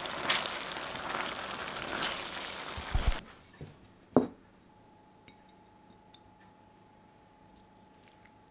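Curry simmering with a steady sizzling hiss in a stainless steel sauté pan as metal tongs stir and scrape through it; the hiss cuts off abruptly about three seconds in. About a second later a ceramic bowl is set down on a wooden table with a single knock, followed by faint clicks as food is served into it.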